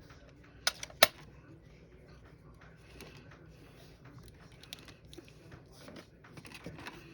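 Two sharp clicks about a second in, then faint rustling and light tapping of paper and crafting tools being handled on a work table.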